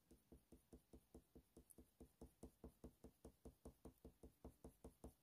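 Faint, rhythmic scratching of a Faber-Castell Polychromos colour pencil on hot-press watercolour paper: quick short strokes at about five a second, a little louder after about two seconds.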